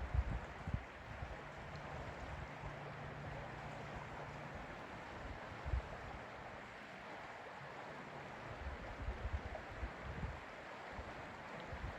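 Lake ambience: a steady hiss of moving water, with low gusts of wind buffeting the microphone at the start, about six seconds in, and again a few seconds before the end. A faint low drone sits under it for a few seconds starting about a second in.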